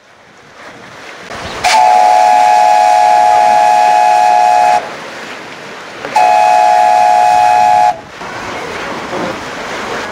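Steam whistle of a small steam launch blown twice: a long blast of about three seconds, then a shorter one of under two seconds, each a steady, unwavering tone, sounding the boat's departure signal. A steady rushing noise runs underneath and between the blasts.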